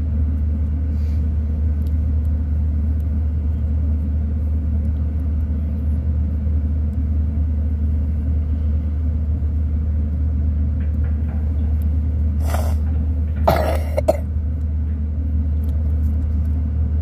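A steady low rumble, with two short coughs near the end, the second longer than the first.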